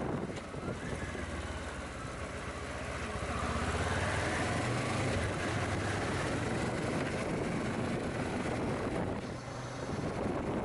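Motorcycle engine running while riding, with wind noise over the microphone. The revs climb a few seconds in, then ease off briefly near the end.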